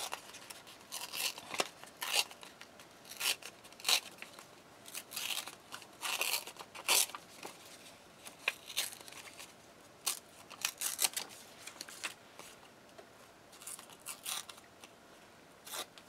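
Sheet-music paper torn by hand in short rips, a few at a time with brief pauses between, as edges are torn away.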